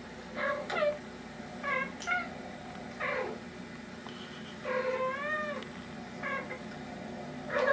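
Two cats trading short chirping meows, played back through a small computer speaker: a call about every second, with a longer wavering meow about five seconds in and the loudest one at the very end.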